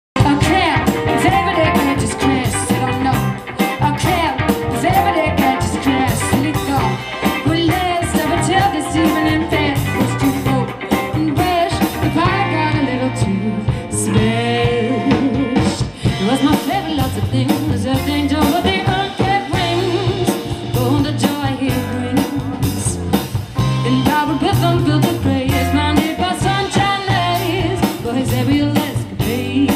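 A live band playing with drum kit, electric guitar and bass, and a woman singing lead.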